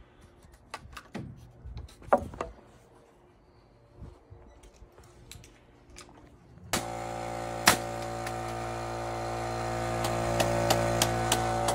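Light clicks and taps of a tape measure and lumber being handled. About seven seconds in, a machine starts abruptly with a loud steady hum, with a few sharp knocks over it.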